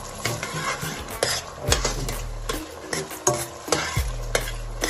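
A spoon stirring and scraping in a pot, knocking against it at irregular moments, over the steady sizzle of onions and tomato paste frying in hot palm oil.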